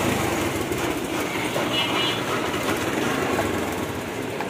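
Busy street traffic noise, a steady mechanical rumble, with a short high horn toot about two seconds in.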